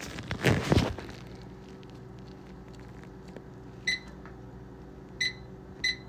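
Whirlpool over-the-range microwave's keypad beeping three times, short high beeps as buttons are pressed, over a faint steady hum. A brief rustling noise comes near the start.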